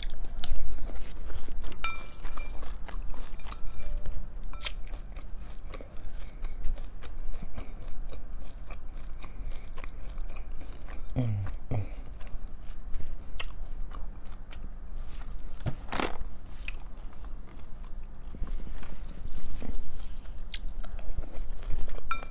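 Close-miked chewing and crunching of a mouthful of crunchy breakfast cereal, as irregular crisp crackles throughout. There is a brief low hum about 11 seconds in.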